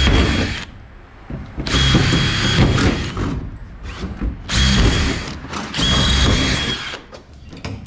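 Cordless drill drilling out the rivets that hold a race car's body panel. The motor whines in four short bursts with brief pauses between them as the bit cuts through each rivet head.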